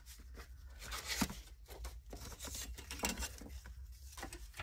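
Paper and cardstock being handled on a tabletop: light rustling with scattered small taps and clicks.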